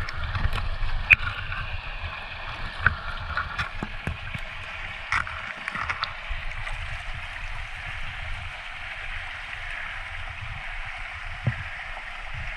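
Shallow creek water running and gurgling over cobbles, a steady rushing babble. A few short, light clicks and knocks come in the first half and once more near the end as a rock is lifted out of the streambed.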